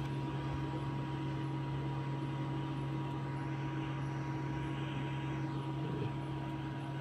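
Hot-air rework blower running steadily: an even fan hiss with a constant electrical hum.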